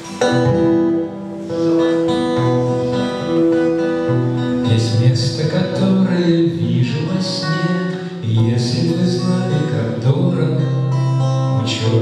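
Acoustic guitar playing an instrumental introduction: ringing chords, with sharper strummed strokes coming in from about five seconds in.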